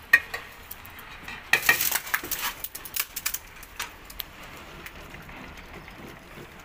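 Wooden saag masher (ghotna) knocking and scraping against the inside of a steel pot: a single click at the start, a quick run of clattering knocks about a second and a half in, then a few scattered knocks. The saag is being mashed and churned with flour just added.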